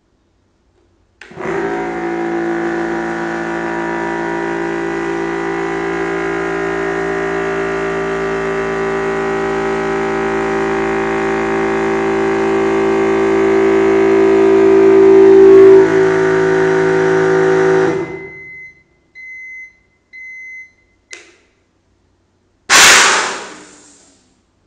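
Yong Heng 300-bar electric PCP air compressor running steadily as it fills a small air cylinder through the regulator being adjusted. It grows gradually louder as the pressure builds, then shuts off. Near the end, high-pressure air is vented in a short, loud hiss.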